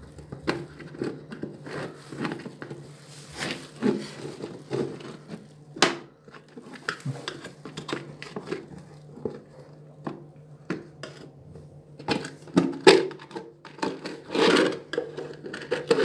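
Hard plastic clicking, creaking and knocking as a washing machine's detergent drawer housing is prised apart at its clips with a small screwdriver. The clicks come at uneven intervals, with a sharp snap about six seconds in and a run of louder knocks in the last few seconds, over a faint steady low hum.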